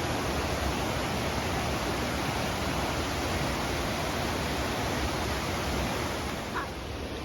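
Rushing water from small creek waterfalls, a steady hiss that gets a little quieter near the end.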